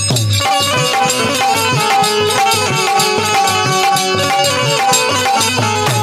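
Instrumental folk ensemble playing: an Indian banjo (bulbul tarang) picks out a repeating melody over sustained harmonium chords, with a steady low drum beat and small brass hand cymbals.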